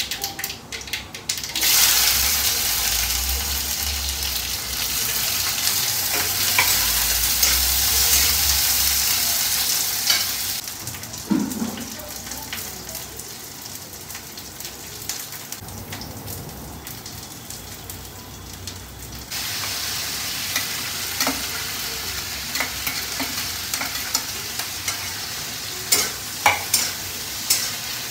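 Chopped okra and vegetables sizzling in hot oil in a kadhai, a loud hiss that starts suddenly a couple of seconds in as they go into the pan. The sizzle drops lower about ten seconds in and rises again later, with a metal spatula clicking and scraping against the kadhai near the end as the okra is stirred.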